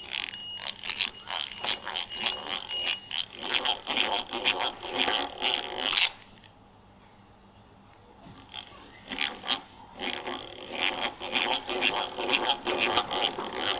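Eggbeater hand drill cranked to bore a tang hole into a green-wood handle blank: rhythmic gear chatter and the bit scraping through the wood, with a thin squeal in the first few seconds. The cranking stops about six seconds in and resumes after a couple of seconds.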